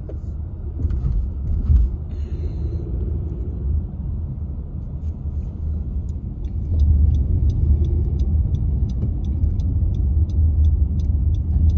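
Low, steady rumble of a car's engine and tyres heard inside the moving cabin. From about five seconds in, a regular ticking joins it, about two ticks a second.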